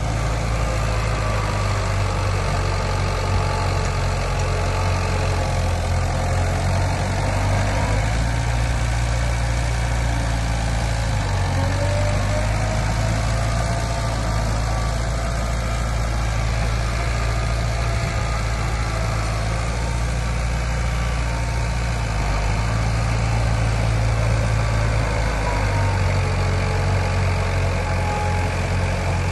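Heavy diesel engine of earthmoving equipment running steadily. Its low note shifts a few times, and there are faint whining glides above it.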